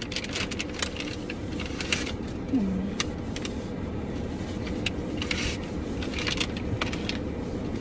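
Steady road noise inside a moving car's cabin, with scattered crinkling and clicking of paper being handled in the hands.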